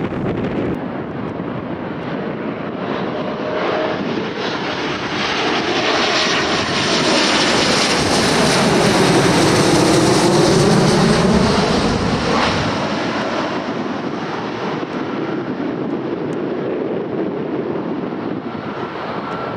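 Airliner engines as the aircraft passes close by, swelling to a peak about halfway through and then fading away.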